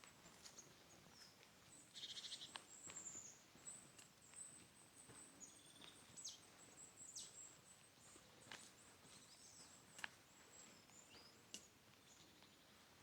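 Faint forest ambience: small birds giving thin, high-pitched calls and chirps, some sliding down in pitch, with a brief rapid trill about two seconds in. A few soft taps are heard now and then.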